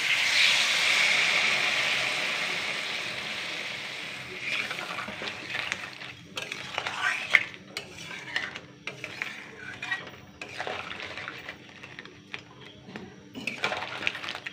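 A cup of water poured onto hot crab masala in a metal kadai sizzles loudly and dies away over about four seconds. After that, a metal spatula scrapes and clinks against the pan as the crab is stirred into the new gravy.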